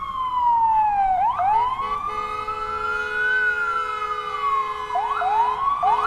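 Emergency-vehicle siren wailing, its pitch sliding slowly down and up, with quick upward sweeps about a second in and again near the end. A steady tone holds underneath it through the middle.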